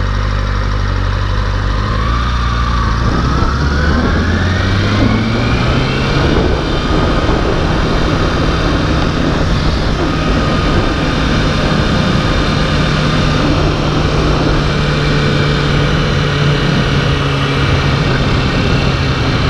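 Kawasaki Ninja motorcycle engine turning over low at first, then rising in pitch for a few seconds as the bike pulls away, and settling into a steady run at speed with a constant rush of noise.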